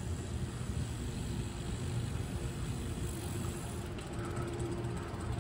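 Riding noise of a Brompton folding bicycle on a concrete sidewalk: wind on the microphone and tyres rolling make a steady low rumble.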